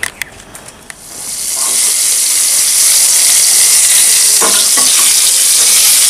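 Stuffed pointed gourds (potol) sizzling loud and steady in shallow oil in a karahi. The sizzle comes in about a second in. A metal spatula knocks against the pan twice, about four and a half seconds in.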